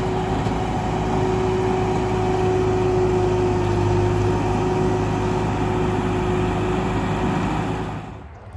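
New Holland narrow vineyard tractor's diesel engine running at a steady, unchanging pitch as the tractor rolls off a trailer ramp onto gravel. The engine sound drops away near the end.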